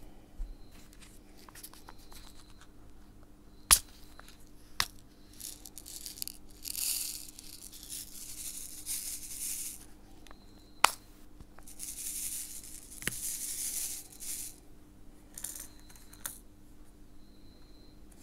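Small clicks of a diamond painting pen picking up round resin drills and pressing them onto the sticky canvas, with two longer spells of hissing rattle as loose drills are shaken and slide about in the plastic tray. Two sharp clicks stand out as the loudest sounds, about a quarter of the way in and just past the middle.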